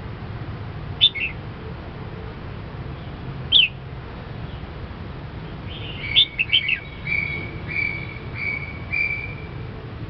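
Caged red-whiskered bulbul calling: a sharp chirp about a second in and another a few seconds later, then a quick run of notes followed by four or five short, even whistled notes.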